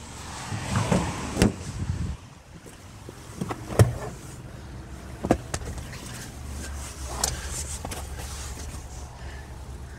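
Rustling handling noise and several sharp clicks and knocks from a hand-held camera being moved around a car's interior trim, over a low, steady hum inside the cabin.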